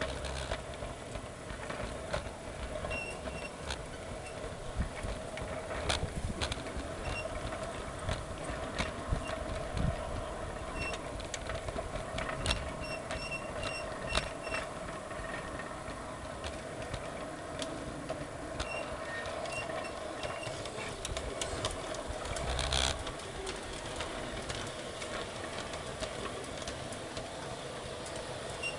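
G-scale garden railway train running, heard from a camera riding on it: a steady electric-motor hum with irregular clicks and knocks as the wheels run over rail joints and points, one louder knock a little before the end.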